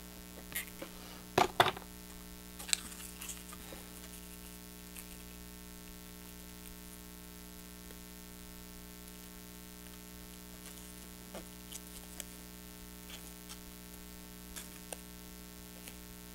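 Small clicks and taps of stiff cardstock pieces being handled and pressed together during hot-gluing, sharpest about a second and a half in, then only faint scattered ticks, over a steady low electrical hum.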